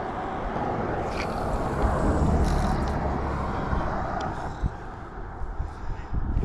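A road vehicle passing by: a rumble that swells about two seconds in and fades away, over steady outdoor noise, with a couple of faint clicks.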